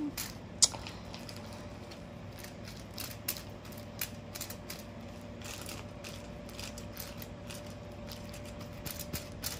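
Plastic-gloved hands working hair dye through wet curly hair bundles on a plastic sheet and foil: irregular crinkling and small clicks of plastic. A faint steady hum sits underneath.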